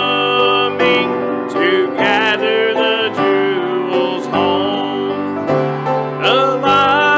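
A solo voice sings a hymn with vibrato over piano accompaniment, the notes held and gliding from one to the next.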